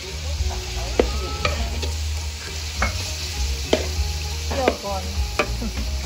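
Metal spatula scraping and clacking against a large steel wok as pork pieces sizzle and fry, with a sharp knock about once a second over a steady frying hiss and a low steady rumble underneath.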